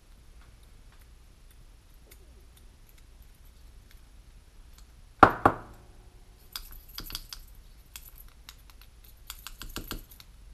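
A small driver prodding and tapping inside a radio-control helicopter's main blade grip to work a spacer out: light clicking, a sharp knock with a short ring about five seconds in, then two quick runs of small clicks.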